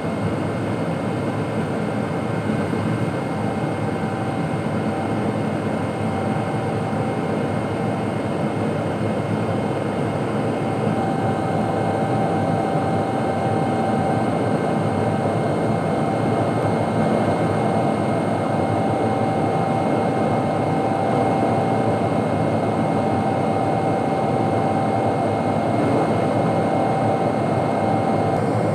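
Boeing 777-200's twin jet engines at high thrust, heard from inside the passenger cabin: a dense, steady rushing noise with a few high steady whining tones, growing a little louder about ten seconds in.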